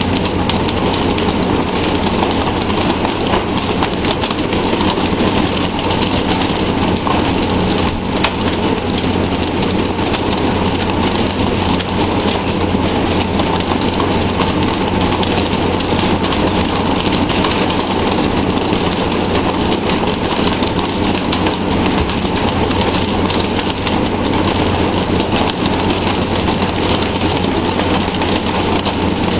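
Steady, loud rush of water spraying and splashing against the side of a pole-and-line fishing boat, over a low, even hum from the boat's engine.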